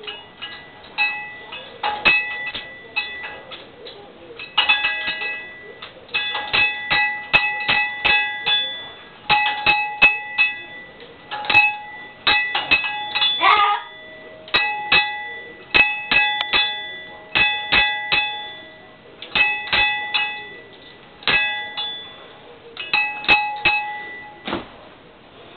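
A small metal bell toy on a parrot cage being rung by an African grey parrot: quick clusters of strikes, each leaving a clear, several-toned ring, in bursts every second or two, with one short sliding sound about halfway.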